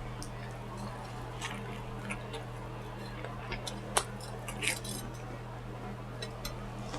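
Eating sounds while chewing onion rings: scattered soft lip smacks and small mouth clicks over a steady low hum, with a sharper click about four seconds in and a short crunchy crackle just after it.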